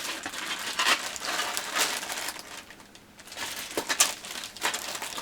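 Model-kit packaging crinkling and rustling in handling as decal sheets are put back in, with irregular louder crackles about a second in, near two seconds and at four seconds.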